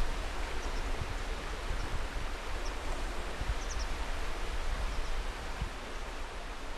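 Steady outdoor rushing noise with an uneven low rumble beneath it and a few faint, brief high chirps.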